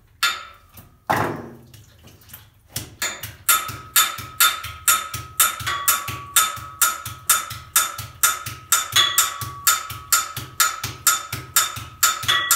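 A metal pipe struck twice, ringing. Then, about three seconds in, a steady techno drum beat sets in at about two beats a second: a low kick with sharp clicking hits that carry a metallic ring.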